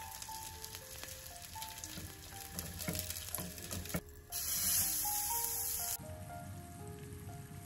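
Food frying in oil in a frying pan, a steady sizzle with a few knocks and scrapes of a wooden spatula. About four seconds in the sizzle turns much louder and hissier for under two seconds, then cuts off sharply back to a quieter frying sound.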